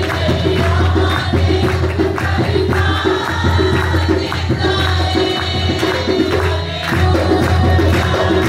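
Worship music: voices singing over a fast, even beat of hand claps and percussion, with a steady low bass underneath.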